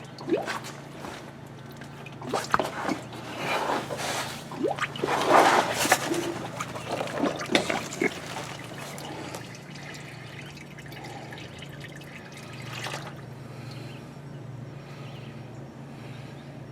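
Engine oil draining into a drain container, gurgling and splashing in quick irregular glugs for about the first half, then settling to a quieter steady trickle, over a steady low hum. The container's air vent is shut, so air bubbles back up through the oil as it fills.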